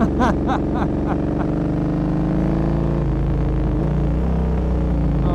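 Motorcycle engine running steadily while riding, heard from the rider's position. The engine note dips slightly about three seconds in, then picks up again.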